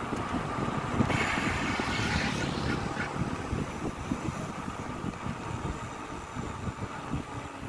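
Wind buffeting the microphone as a bicycle rides along a road. A hissing rush swells about a second in and fades over the next two seconds.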